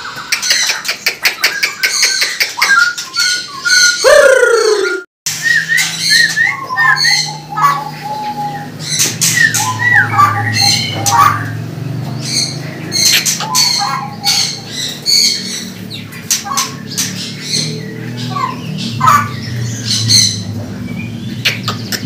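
Caged songbirds, among them straw-headed bulbuls (cucak rawa), calling and singing in loud whistled glides and chirps. The sound cuts off abruptly about five seconds in, then scattered chirps and whistles carry on over a steady low hum.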